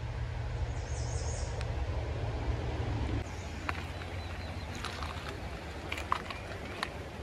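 Outdoor background with a low rumble on the microphone while walking through woods, and a brief high bird chirp about a second in. After a cut, a quieter creekside background with scattered sharp ticks of footsteps on the stony bank.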